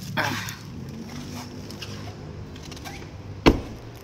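A brief rustling scrape just after the start, then a single sharp thud about three and a half seconds in as a Chery Omoda 5's door is shut.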